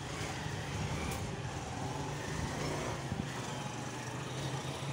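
Steady town background noise with a continuous low hum, like distant road traffic.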